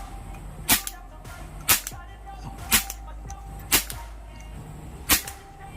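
GT Airguns air rifle fired five times, about a second apart, each shot a sharp crack.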